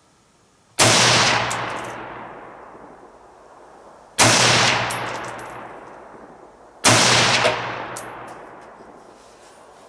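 Three single shots from a Colt Combat Unit Carbine, a 5.56 mm AR-15-pattern rifle, fired a few seconds apart. Each sharp report is followed by a long echo that dies away over two to three seconds.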